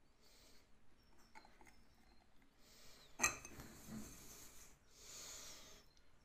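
Faint handling of small metal gears: scattered light clicks, one sharp metallic clink about three seconds in, and a few short rustling hisses.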